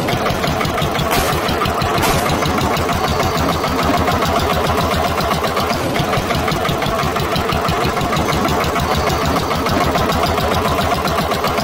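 Tractor engine running with a steady, rapid chug that cuts in suddenly at the start.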